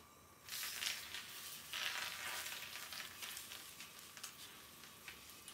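Sizzling from a hot frying pan on a gas stove. It starts suddenly about half a second in, comes back louder just before two seconds, then slowly dies down.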